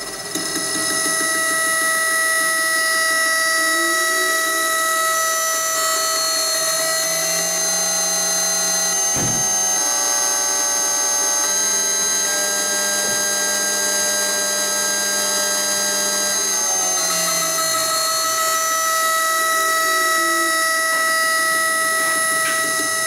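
Sanyo Denki 64BM180LXUL9 spindle motor spinning up and down on a test drive: its whine rises in pitch for about nine seconds, holds steady near top speed (around 11,700 rpm on the tachometer), then falls as the motor slows. A steady high whine sounds beneath it throughout, and a single sharp click comes about nine seconds in.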